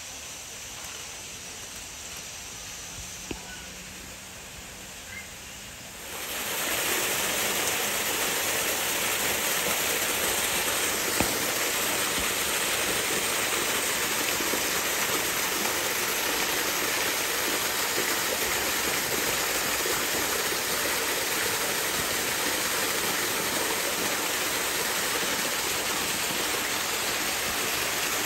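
Steady rush of running water, starting abruptly about six seconds in after a quieter stretch.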